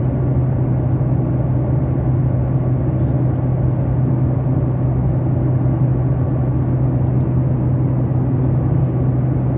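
Steady airliner cabin noise: an even rumble with a constant low hum, holding level throughout.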